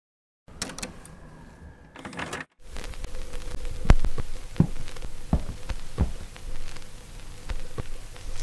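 A series of sharp clicks and knocks, spaced a little under a second apart, the loudest about four seconds in.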